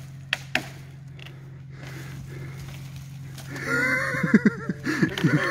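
Branches crack and rustle a few times as they are dragged off the track, over a steady low hum. About three and a half seconds in, a man breaks into loud, wavering laughter that runs to the end.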